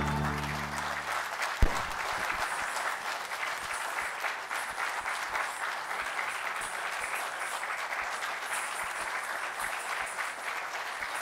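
Audience applauding steadily as the dance music fades out in the first second. A single low thump about a second and a half in stands out above the clapping.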